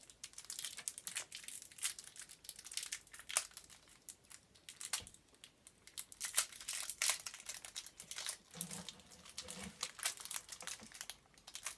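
Thin plastic wrapper crinkling and crackling in a child's fingers as it is picked and torn open, in quick irregular crackles.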